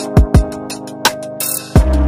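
Dance music with heavy drum hits and held tones, and a deep bass that comes in near the end.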